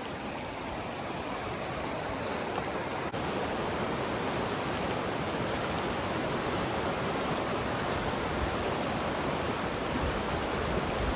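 Flood-swollen creek rushing: a steady hiss of fast-flowing water from a creek running at about three times its usual size. It gets a little louder about three seconds in.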